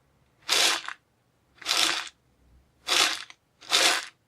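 Grain being shaken, in four short separate shakes about a second apart.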